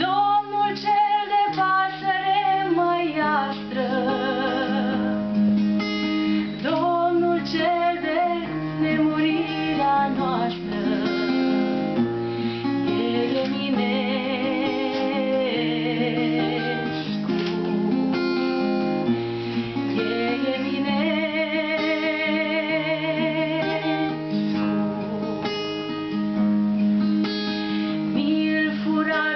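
A woman singing to acoustic guitar accompaniment, the guitar holding steady plucked notes under her wavering melody.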